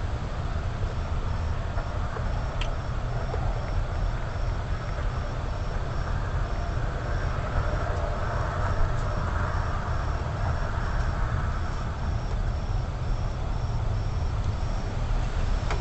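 Steady low rumble and hiss from a wireless surveillance camera's microphone, with a faint high chirp repeating about twice a second.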